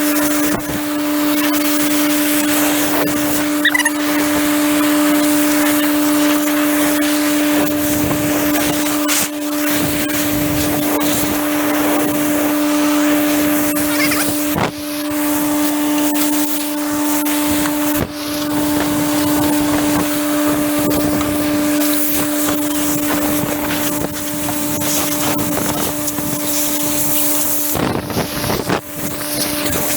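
Compressed-air blow gun blasting dust and chaff off a baler, a loud continuous hiss broken by a few brief releases of the trigger, over a steady hum.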